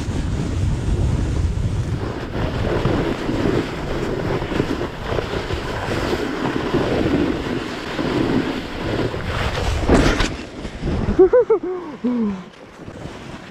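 Wind rushing over the microphone, with the hiss of a snowboard sliding on snow during a downhill run. About ten seconds in there is a sharp knock. The rushing then drops away quickly, and a short wavering vocal sound follows.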